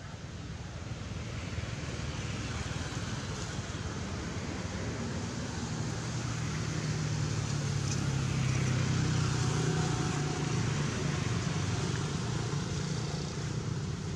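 A passing motor vehicle's engine hum, building gradually to its loudest about nine seconds in and then easing off a little.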